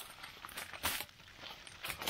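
Aluminium foil crinkling and crackling as a parcel of meat is folded up in it by hand: soft rustling with a few sharp crackles, the loudest about a second in and again near the end.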